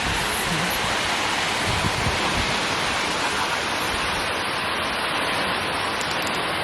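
Steady rushing roar of the Wli (Agumatsa) waterfall, water falling without a break.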